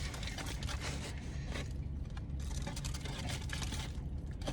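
Steady low hum inside a car, with soft scraping and rustling noises over it in stretches and a few small clicks.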